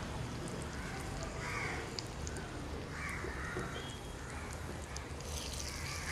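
Crows cawing several times, a harsh call every second and a half or so, over a light sizzle of bread buns frying in a little oil in a small pan.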